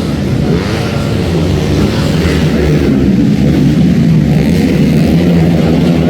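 Motocross bike engine running hard under load, its pitch wavering up and down with the throttle.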